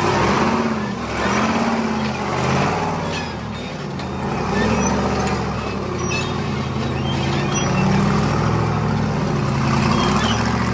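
Unlimited 4400-class rock-racing car's engine revving up and down as it crawls over boulders, with a few sharp clicks along the way.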